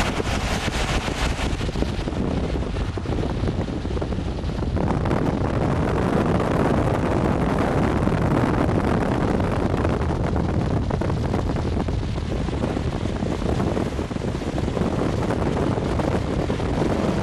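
Steady road and wind noise from a moving car, with wind rushing over the microphone; the hiss is brighter for the first couple of seconds, then settles into a steady low rumble.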